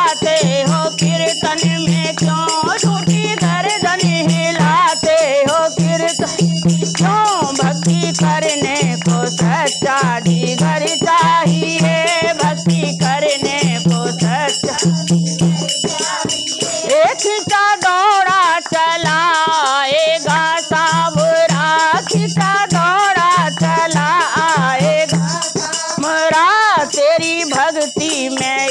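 Women singing a devotional bhajan in Hindi, accompanied by a dholak's steady bass strokes and a shaken hand rattle. The drum drops out for a few seconds about halfway, then comes back in.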